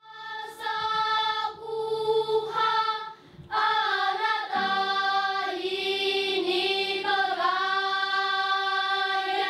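Children's choir singing long held notes of an Atayal song, with a short break about three seconds in.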